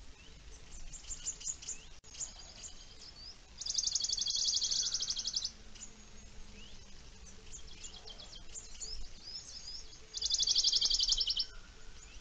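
Small songbirds chirping and calling in pine forest, with two loud, fast, even trills, one about four seconds in and one about ten seconds in.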